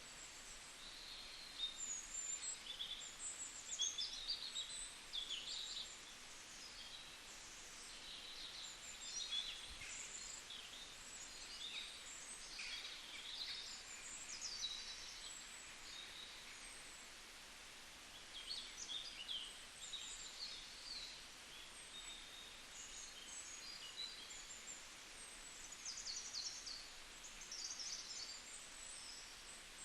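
Several small songbirds chirping and twittering, with many short, high calls overlapping in clusters over a faint steady background hiss.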